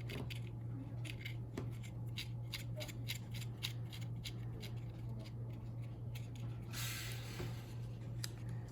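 Small irregular clicks and ticks from handling the parts of a bicycle twist-grip shifter and its gear cable, with a short hissing rustle about seven seconds in, over a steady low hum.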